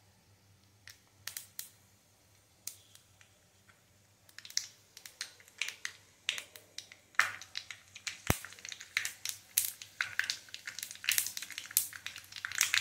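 Mustard seeds popping in hot coconut oil as they splutter for a tempering: scattered sharp pops at first, coming faster and louder through the second half.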